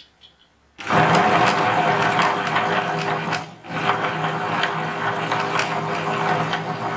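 Tabletop wet grinder running, its stone rollers grinding soaked fenugreek and urad dal into batter. It is a steady hum with light regular ticking, starting suddenly about a second in, with a brief dip in the middle.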